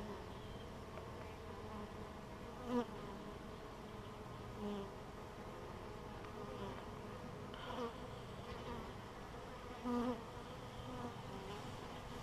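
Honeybees buzzing at the hive entrance: a steady hum from the colony, with single bees flying close past the microphone four times, their buzz briefly swelling louder. The bees are agitated and guarding the entrance.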